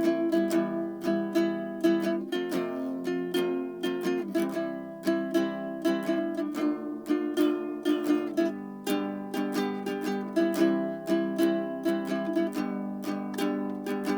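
Background music: a light plucked-string tune, ukulele-like, with a steady rhythm of picked notes.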